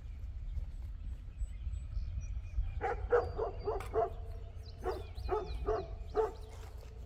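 Dogs barking: a quick run of barks about three seconds in, then a few more spaced-out barks.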